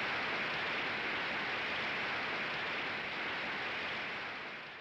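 Audience applause as a dense, steady wash of clapping, fading out near the end.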